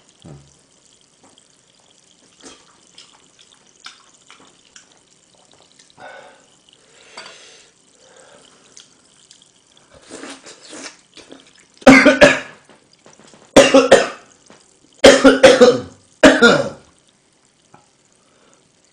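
A man eating quietly, with faint chewing and mouth sounds, then coughing hard four times, about a second or so apart, starting about twelve seconds in.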